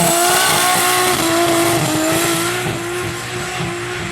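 Turbocharged Ford Barra inline-six in a Holden VL Calais running at high revs, held nearly steady with small dips, under a hiss of noise as in a burnout. It eases off slightly about three seconds in.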